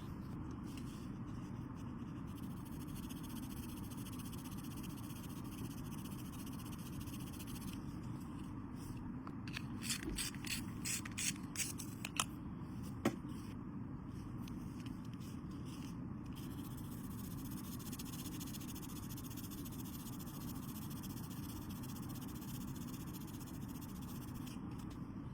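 Steady low background noise with a handful of light clicks about ten to thirteen seconds in.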